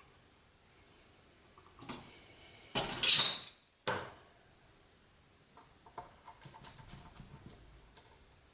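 Handling noises while gluing and clamping a plywood piece: a short, loud scrape about three seconds in, a sharp knock just after it, then a run of light clicks and taps.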